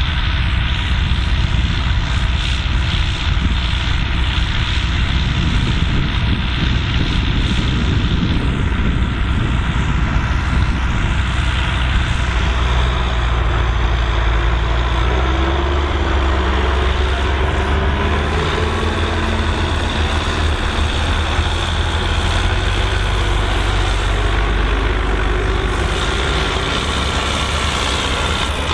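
Volvo BM 2654 tractor's diesel engine running steadily under load while ploughing, with a whine that rises in pitch about halfway through.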